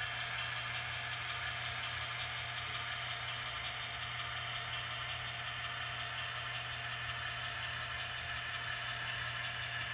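Zimo sound decoder in a Roco model DSB MY diesel locomotive playing a steady diesel engine sound through its small loudspeaker while the model moves slowly along the track.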